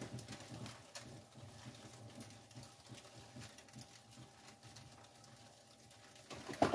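Faint handling sounds, small scattered taps and rustles, as rubber kitchen gloves are pulled on; a louder knock or clatter comes near the end.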